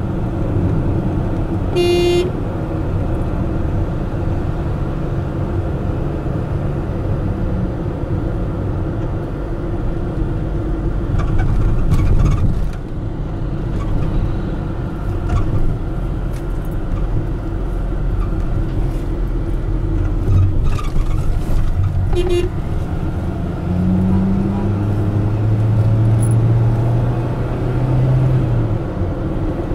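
Steady road and engine noise heard inside a moving car's cabin. A short car-horn beep sounds about two seconds in and again about twenty-two seconds in.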